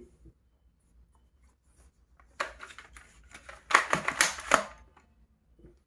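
Clicking and rattling of hard plastic as a toy gun is handled: a short run of clicks a little over two seconds in, then a louder, denser clatter for about a second.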